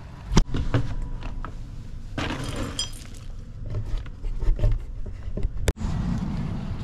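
A hand scooping dry dog kibble out of a storage bin: the pellets rattle and clink in short irregular bursts, with a few sharp knocks. Near the end it cuts off abruptly to a steady low background hum.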